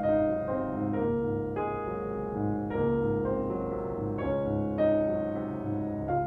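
Background piano music: a slow melody of single notes over sustained chords.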